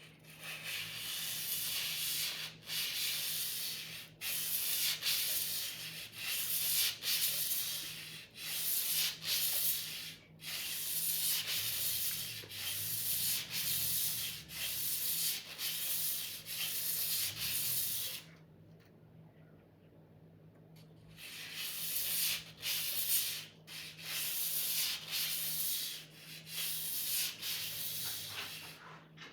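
Sword blade being sharpened: repeated scraping strokes of steel on an abrasive, about one a second, with a pause of a few seconds a little past the middle.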